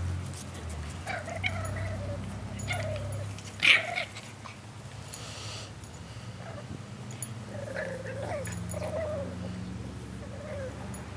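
Boston terrier puppies playing and wrestling with a larger dog, giving short calls every second or two, with one louder, sharp cry just before four seconds in.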